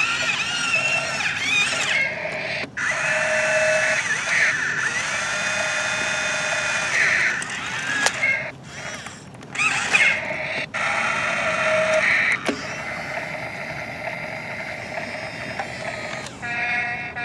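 Electric motors and plastic gearboxes of a Toy State CAT remote-control toy excavator whining as the boom, arm and bucket move. The whine starts and stops several times, its pitch rising and falling.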